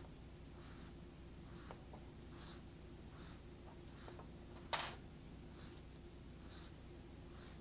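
Faint, rhythmic soft scraping of the automatic tool changer being turned by hand onto the HF500 spindle's threads, a stroke a little more than once a second, with one sharp click near the middle.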